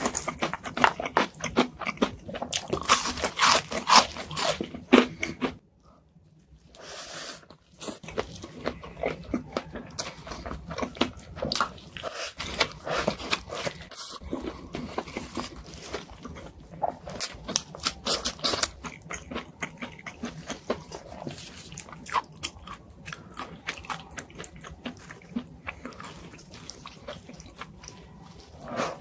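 Close-miked eating: a person biting into and crunching crisp food, then chewing with steady crackling and smacking. There is a short break about six seconds in, after which the crunching goes on more softly.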